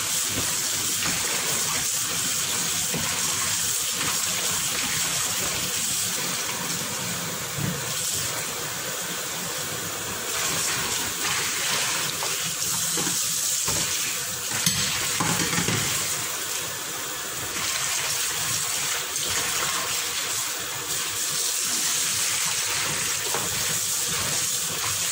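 Kitchen tap running steadily into a plastic basin in a stainless-steel sink, water splashing as chicken wings are rinsed by hand. Partway through, the rinse water is tipped out into the sink, and there is one short sharp knock near the middle.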